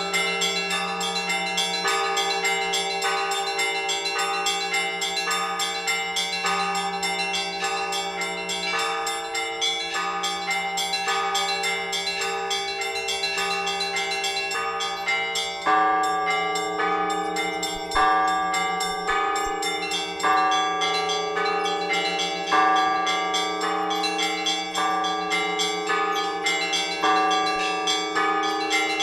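Orthodox church bells rung together by a bell ringer: a quick, continuous chiming of the small bells over the ringing of the larger ones. About halfway through, a heavier bell joins in, striking roughly every two seconds.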